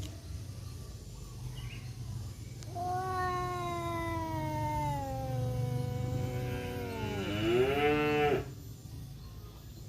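A male cat's long, drawn-out yowl in a standoff with another tomcat, lasting about five seconds: the pitch slides slowly down, then rises into a wavering end before cutting off sharply.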